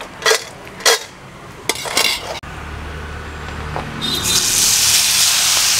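A few sharp clicks, then about four seconds in raw jackfruit strips hit hot frying oil and a loud, steady sizzling hiss starts.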